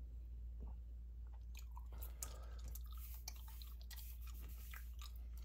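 Gum being chewed close to the microphone: irregular wet smacks and clicks, sparse at first and busier from about a second and a half in, over a steady low hum.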